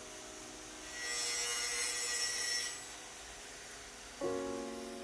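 A router's disc-shaped slot cutter cuts into the edge of a beech board, a high-pitched cutting noise lasting about two seconds, over soft background music. A new music chord comes in near the end.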